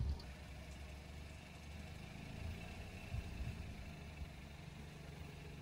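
Car engine running slowly, a steady low hum.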